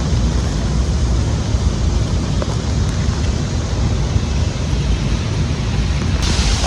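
Thunderstorm wind buffeting the microphone in low rumbling gusts over a steady rushing hiss of rain.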